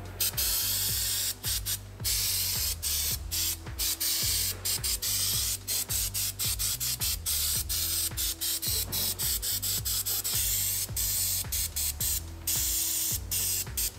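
Aerosol spray can hissing in a long string of short bursts, broken by brief gaps two or three times a second.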